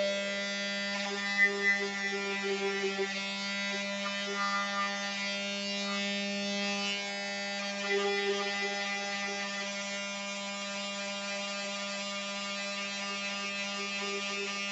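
Electric power sander running with a steady buzz on fiberglass and carbon fiber, its overtones wavering slightly as the work goes on.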